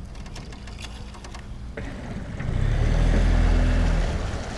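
Boat motor running, a low hum that swells up about two seconds in and dies away near the end.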